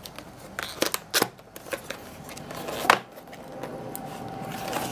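A cardboard retail box being opened by hand: card and paper rustling, with a few sharp clicks and snaps and a longer rustle building near the end.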